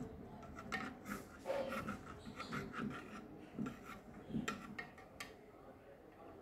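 Steel ladle scraping and knocking against the inside of a metal pressure cooker while thick cooked urad dal is stirred and mashed, in uneven strokes with sharp clicks.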